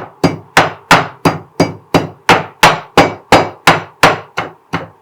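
Mortar and pestle pounding black peppercorns, cumin and fenugreek: steady, even strikes, about three a second, each ringing briefly.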